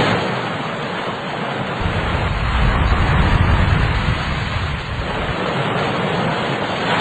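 Storm noise: a steady rushing hiss of wind, rain and sea, with a deep rumble that swells about two seconds in and dies away a couple of seconds later.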